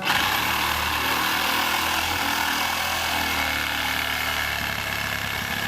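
Power saw starting abruptly and running steadily as it cuts into a tree trunk to make the felling notch.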